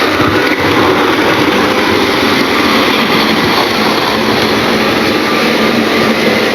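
Model diesel locomotive running steadily along the track of a model railway layout: a steady motor and wheel-on-rail running noise.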